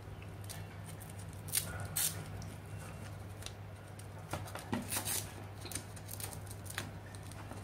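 Hands handling a bundle of sleeved modular power-supply cables and working loose the hook-and-loop strap around them: scattered short scratchy rustles and clicks, busiest about two seconds in and again around five seconds in, over a steady low hum.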